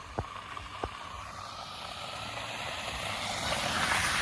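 A car approaching on a road of melting snow and slush, its tyre noise rising steadily as it nears and loudest near the end. There are a couple of sharp clicks in the first second.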